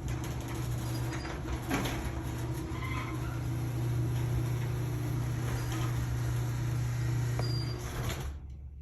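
Stanley garage door opener running with a steady hum as the door closes, stopping about eight seconds in. The door comes all the way down without reversing: the safety sensors did not trip on the shoe placed in its path.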